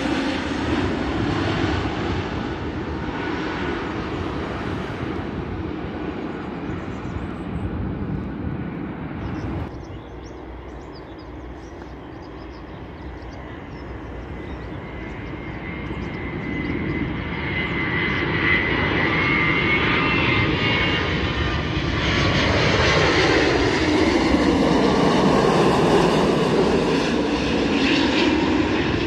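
Jet airliners on final approach. An Airbus A321's engines pass overhead and fade, then after a sudden cut about ten seconds in, a Boeing 787's engines grow steadily louder as it comes in low. The sound peaks as the 787 passes close overhead, with a sweeping shift in tone.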